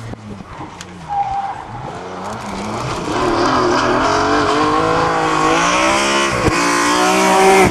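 BMW 3 Series rally car engine at full acceleration, approaching and growing steadily louder, its note climbing through the revs with a quick gear-change break about six and a half seconds in.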